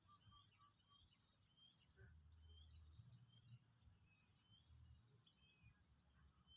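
Faint outdoor ambience: a steady high insect drone with small birds chirping softly, and one sharp click a little past the middle.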